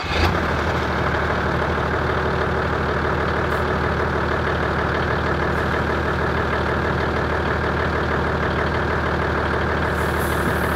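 ARB Twin twin-cylinder 12 V air compressor running steadily under load, pumping air through a hose into a four-wheel-drive's tyre.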